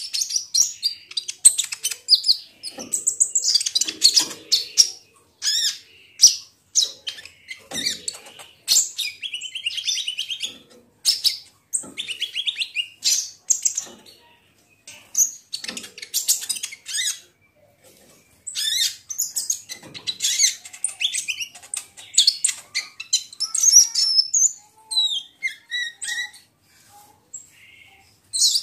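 Van Hasselt's sunbird (kolibri ninja) singing: rapid, high-pitched twittering chirps and trills in bursts of a few seconds, with short pauses between.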